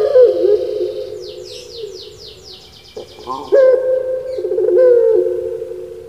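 Puter pelung (Barbary dove) giving its long, low, rolling coo: one call tails off just after the start, a short note comes about three seconds in, and a second long coo starts right after and fades away. A quick high chirping trill from another bird runs for about a second in between.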